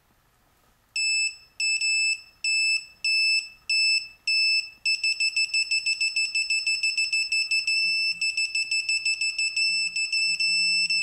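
GearWrench digital torque wrench sounding its target-torque alert as it is pulled on a nut: a high electronic beep about twice a second from about a second in, switching to fast beeping about five seconds in that runs almost into one tone near the end. It warns that the pull is nearing the set torque.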